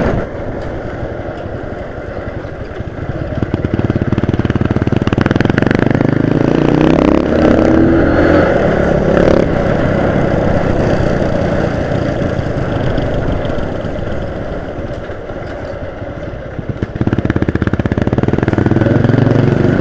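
Small motorcycle engine running under way. It picks up and rises in pitch about four seconds in, settles to a steady cruise, and picks up again near the end.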